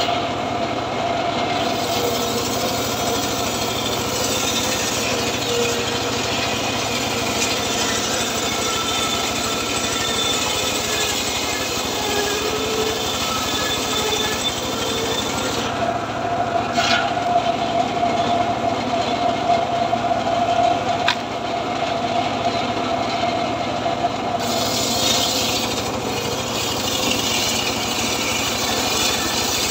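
Homemade table circular saw running and ripping boards of dry, very hard acacia wood, a steady mechanical sound with a whine that grows stronger through the middle of the cut. A single sharp knock about two-thirds of the way through.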